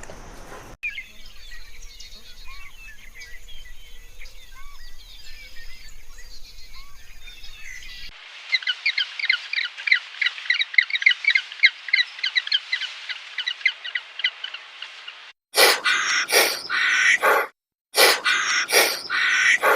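Birds calling in three spliced clips: faint scattered chirping, then a long run of rapid high twittering notes, then near the end a series of loud, harsh calls separated by short gaps.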